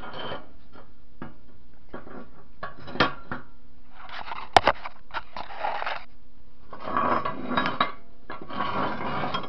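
Steel workpieces being handled and set down on a workbench: scattered clinks of metal on metal, one sharp clank near the middle, and stretches of scraping and rattling as the pieces are moved about.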